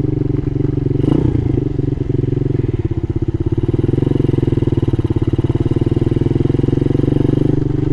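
Mini motorcycle's small single-cylinder engine running at a steady cruising speed, with a brief dip about three seconds in.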